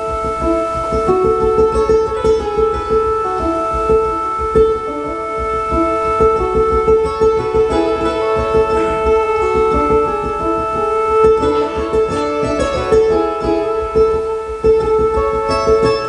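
Ukulele and cello playing an instrumental tune: the ukulele picks a quick, busy line over a long held bowed cello note.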